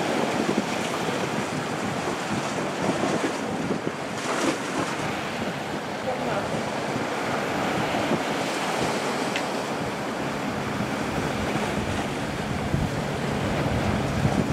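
Sea waves washing and breaking over a rocky shoreline, with wind buffeting the microphone.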